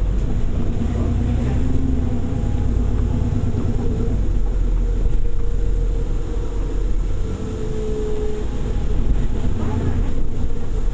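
Bus engine running as the bus drives, heard from inside the passenger saloon: a steady low rumble with engine tones that rise, fall and come and go.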